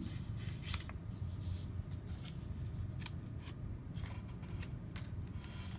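Sheets of drawing paper being handled and shifted on a tabletop: a few faint rustles and taps over a steady low hum.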